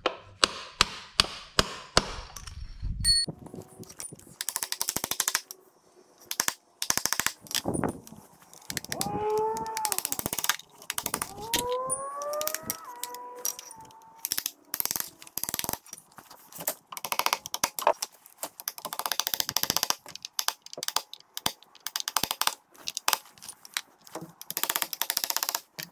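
Claw hammer striking a nail punch to set finish nails down into a door threshold: repeated sharp taps in quick runs, with pauses between runs.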